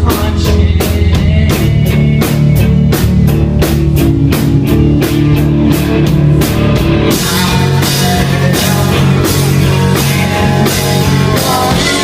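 Rock song with a drum kit beat, bass and guitar. About seven seconds in, the arrangement grows fuller and brighter as the high end fills in.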